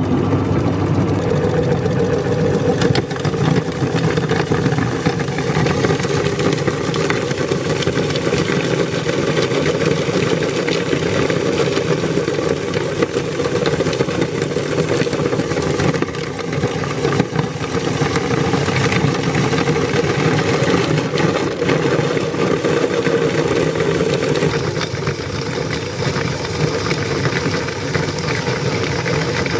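Electric meat grinder switched on suddenly and running steadily, its motor drone overlaid with continuous fine crunching and rattling as it grinds.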